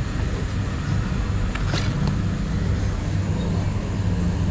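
Steady low hum, with a few sharp clicks just under two seconds in.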